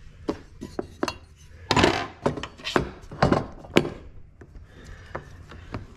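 Irregular handling noise: a scatter of sharp clicks, knocks and light metallic clinks as tools and a work light are moved about, with a brief scraping rustle about two seconds in.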